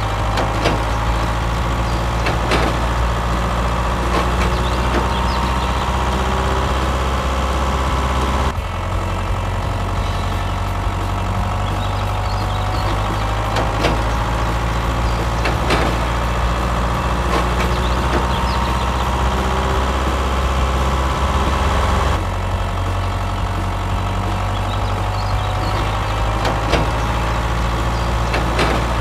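Tractor engine running steadily, with abrupt jumps about eight and twenty-two seconds in where a looped recording of the engine starts over.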